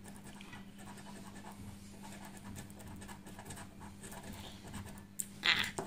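A coin scraping the coating off a paper scratch card: a run of light, dry scratching strokes, with a brief louder sound near the end.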